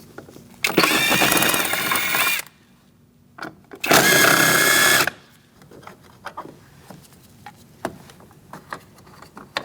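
Cordless power driver with a T25 Torx bit running in two bursts, about a second and a half and then about a second, backing out two bolts. Afterwards there are a few light clicks of handling.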